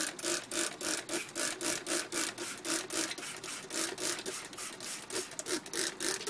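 Plastic trigger spray bottle pumped rapidly, about three squirts a second, each a short hiss of water spray with a squeak from the trigger, wetting the bottle-cap water dish and the coconut-fibre substrate of a lizard tub.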